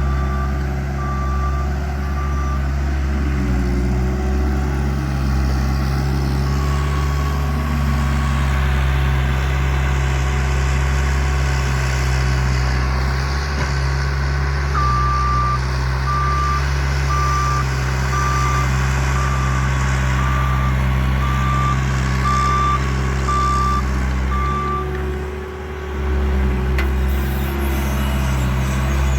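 Bobcat loader's diesel engine running steadily under work, with a reversing alarm beeping about once a second at the start and again through the middle. The engine note dips briefly near the end.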